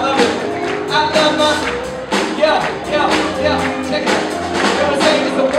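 Live rock band playing a song with a steady drum beat and electric guitar, with a voice singing over the band through the PA.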